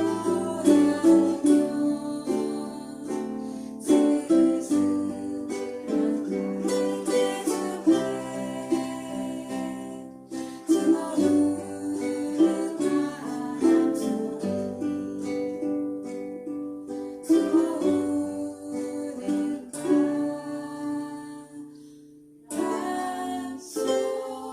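Ukulele ensemble strumming and picking chords over a low bass line. The music thins out briefly about 22 seconds in, then picks up again.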